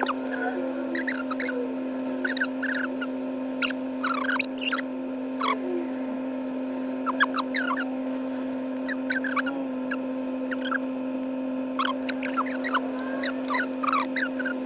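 People chewing chicken nuggets: scattered short smacking, squeaky mouth sounds, over a steady low hum.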